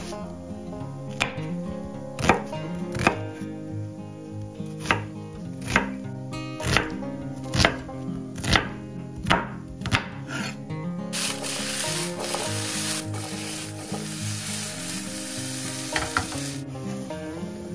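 A knife chopping on a cutting board, about ten strokes roughly a second apart. Then food sizzles in a hot frying pan for about five seconds, starting and stopping abruptly.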